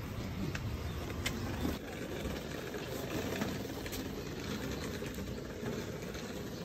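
Steady low background rumble with a few faint, scattered clicks.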